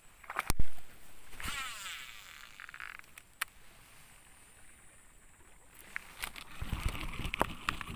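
Baitcasting fishing reel during a cast: a sharp click about half a second in, then the spool whirring for about a second and a half as the line pays out. Near the end come a run of small clicks as the reel is cranked and handled.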